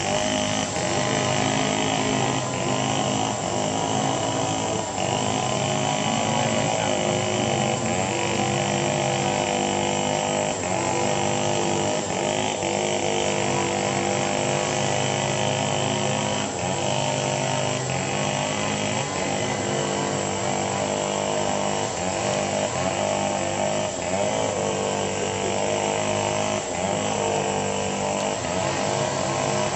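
A steady motor-like drone with several held tones that waver slightly now and then.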